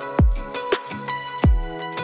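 Background electronic music: sustained synth tones over a deep kick drum, with a sharper snare-like hit between the kicks.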